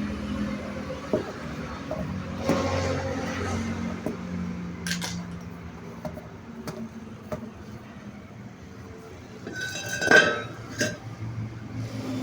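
Metal tools clinking and knocking during tyre work, with scattered sharp clicks over a low steady hum and a louder ringing metallic clang about ten seconds in.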